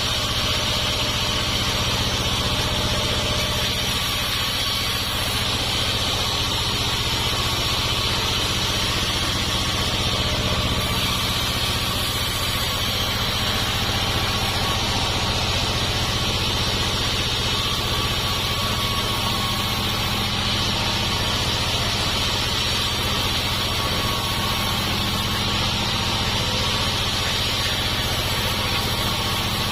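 Homemade sawmill running steadily, a constant machine drone with no change in pace.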